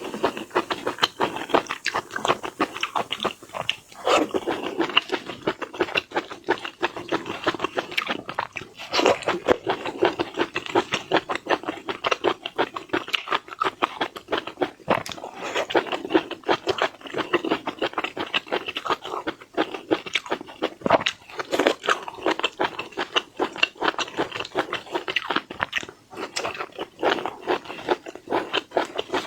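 Close-miked eating of seafood: continuous crunching and chewing, a dense run of short crackly bites.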